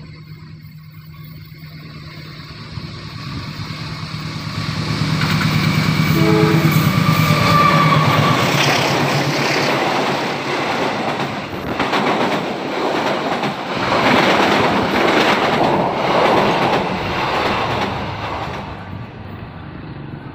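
Diesel-hauled passenger train approaching, its engine hum growing louder until the locomotive passes close about six seconds in. Then the carriages rush past with wheels clacking over the rail joints, and the sound fades near the end.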